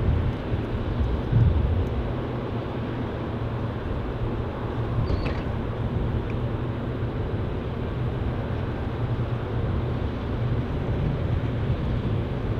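Scania R580 truck's V8 diesel engine running steadily with an even low drone.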